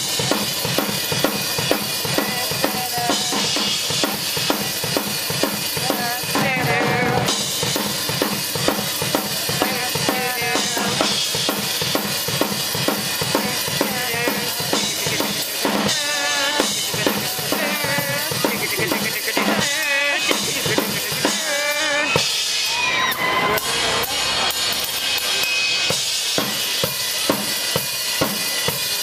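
Rock drum kit played through a soundcheck: kick drum, snare and rimshots in a steady beat. Wavering pitched sounds rise over the drumming now and then, mostly in the second half.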